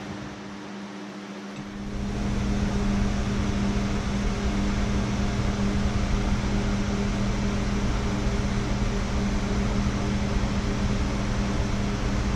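Steady mechanical hum with a rushing noise, which comes in about two seconds in and then holds steady.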